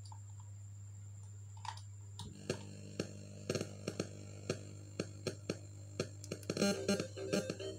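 Music from a phone playing through a home-built bridged power amplifier during a listening test of its driver board. It starts about two seconds in as a steady beat of about two strokes a second, with more instruments filling in near the end, over a steady low hum.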